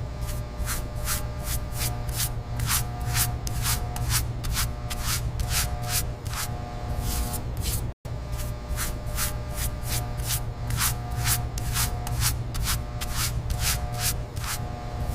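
Rhythmic abrasive scrubbing on the old toy robot's rusty metal, even strokes at about three a second, cut off by a sudden brief dropout about halfway before it resumes.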